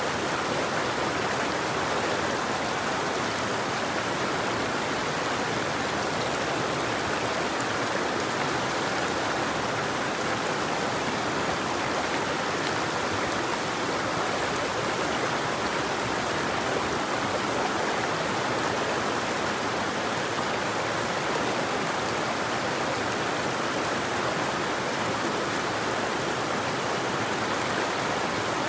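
River water flowing, a steady unbroken rush with no birdsong.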